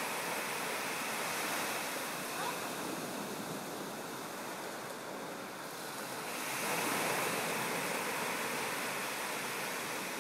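Small waves breaking and washing up onto a sandy beach: a steady wash of surf that dips a little in the middle and swells again about two-thirds of the way through as another wave comes in.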